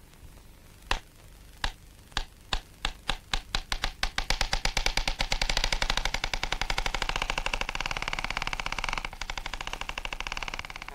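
Film projector starting up: single clicks, slow at first, speed up over about four seconds into a steady rapid clatter that keeps going.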